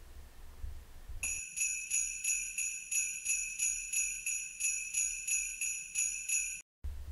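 Jingle bells shaken in an even rhythm, about two shakes a second. They start about a second in and cut off abruptly near the end.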